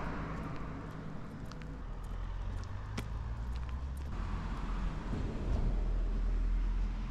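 Outdoor street ambience: low wind rumble on the microphone, with the rising and falling swell of a car passing by from about four seconds in, and a few faint clicks.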